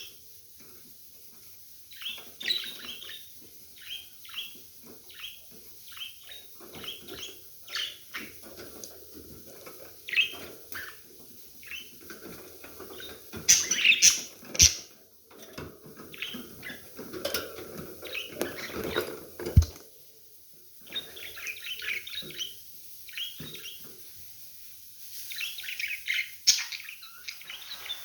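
Pet budgerigars chirping and chattering in quick, irregular short calls, with a few sharp knocks in the middle, the loudest near the end of that stretch.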